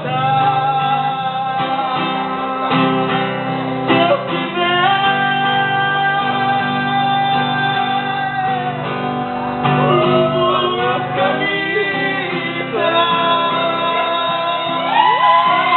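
A singer performing over guitar accompaniment, holding long sustained notes and sweeping through curving melodic runs about ten seconds in and again near the end.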